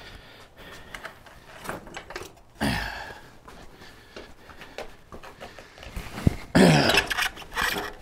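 Motorcycle rear wheel and tyre being wrestled into the swingarm: rubber and metal scuffing, with a sharp knock about six seconds in. Two short effortful grunts come from the person lifting it, about two and a half seconds in and again near the end.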